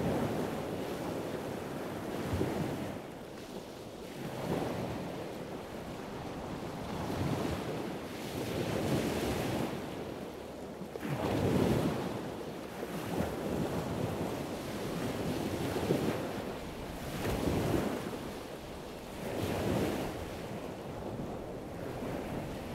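Rushing wind and sea noise that swells and fades about every two seconds, with wind buffeting the camcorder's microphone.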